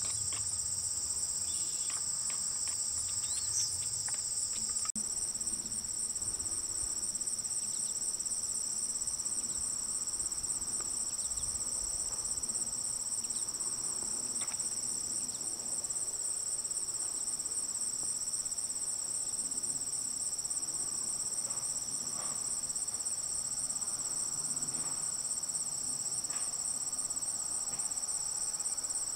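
Steady, high-pitched chorus of singing insects, an unbroken shrill trill in two high pitches, with a slight shift in the sound about five seconds in.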